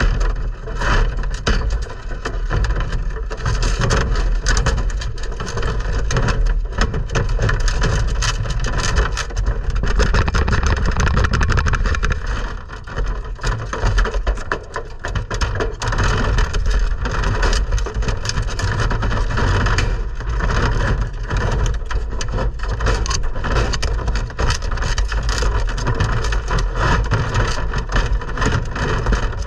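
Prairie dogs scrambling over a wire-mesh cage floor: dense, irregular scratching, clicking and rattling of claws on the wire, with low thumps and rumble as they nose and bump against the camera.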